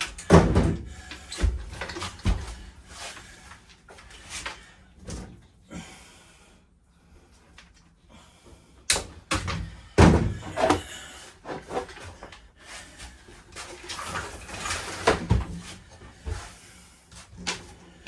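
Wooden interior boards and cabinetry being pried and knocked loose inside an RV: a string of irregular thumps, knocks and bangs with scraping between, the loudest hits about half a second in, around ten seconds in and around fifteen seconds in.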